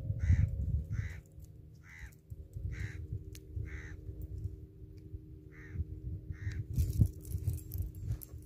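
A crow cawing, seven short harsh calls about a second apart with a brief pause after the fifth, over a low wind rumble on the microphone. A sharp knock about seven seconds in.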